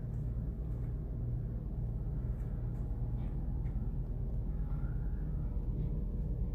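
Steady low rumble and hum of indoor room tone, with a few faint scattered ticks.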